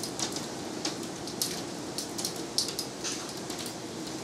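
Heavy rain falling: a steady hiss of rain with irregular sharp taps of individual drops striking close by.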